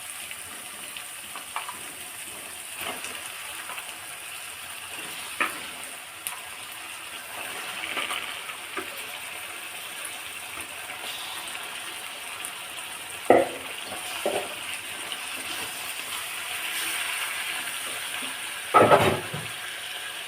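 Chicken pieces frying in oil in a kadai, a steady sizzle, stirred with a few clattering knocks against the pan, the loudest about two-thirds through and near the end.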